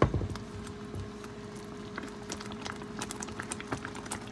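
A spatula knocks and scrapes in the pan at the start. Then milky curry gravy comes up to a simmer, with small bubble pops crackling more and more often over a steady low hum.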